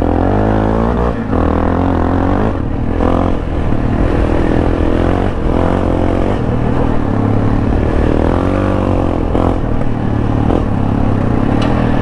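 Yamaha XT660R's 660 cc single-cylinder four-stroke engine running through an Akrapovič titanium exhaust as the bike is ridden, the revs rising and falling with the throttle and dropping briefly about a second in.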